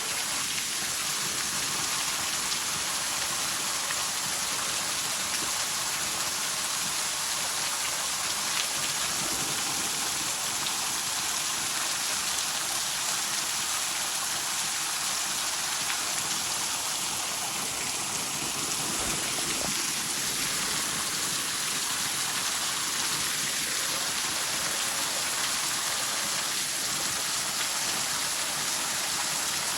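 Waterfall splashing: a steady, even rush of falling water, strongest in the hiss.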